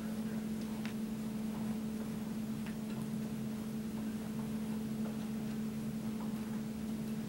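A steady low hum, with a few faint, scattered ticks and clicks from a Phillips screwdriver turning screws by hand to fasten metal angle brackets to a furniture panel.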